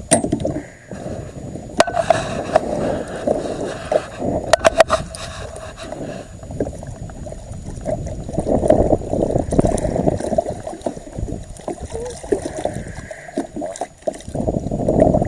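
Water splashing and sloshing at a boat's side as a hooked blue catfish thrashes at the surface, louder about halfway through, with a few sharp clicks and knocks early on from gear.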